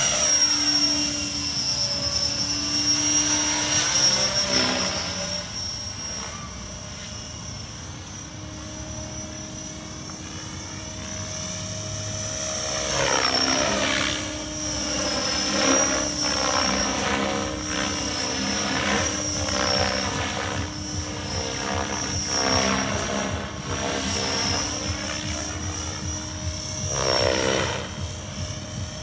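Radio-controlled model helicopter flying overhead. Its rotor and motor sound is steady with a high whine, swelling and fading as it passes back and forth: loud at first, quieter for a few seconds, then louder again from about halfway on.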